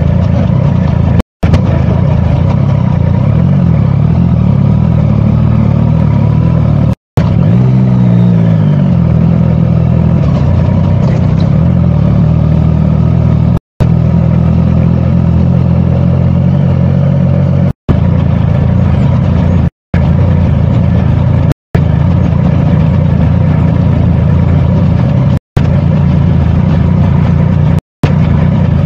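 Motorcycle engine running under way, recorded close from a bike-mounted camera, its pitch dropping and then climbing again about seven seconds in. The sound cuts out completely for an instant several times.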